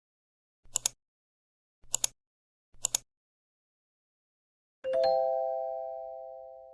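Three quick double knocks, a second or so apart, then a single doorbell-like ding that rings out and slowly fades.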